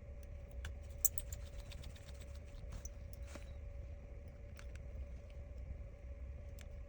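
Faint scattered small clicks of a precision screwdriver driving the iPhone 13's bottom pentalobe screws back in, over a steady low hum.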